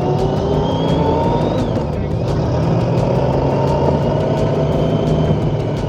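Motorcycle engine accelerating, its pitch rising, dropping at a gear change about a second and a half in, then climbing steadily again in the next gear.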